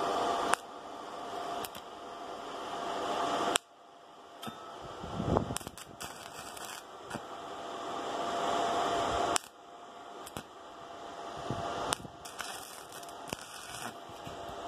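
Stick (arc) welding on a steel drill pipe: the arc crackles and hisses in runs of a few seconds. Each run cuts off suddenly with a click as the arc is broken, and the arc is struck again several times.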